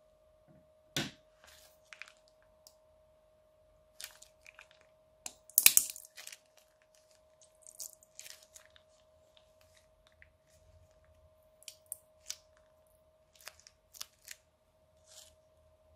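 Slime being squeezed out of a plastic piping bag into a glass bowl, with the bag crinkling and the slime crackling and popping in scattered bursts, loudest about a second in and again just before six seconds in. A faint steady hum lies underneath.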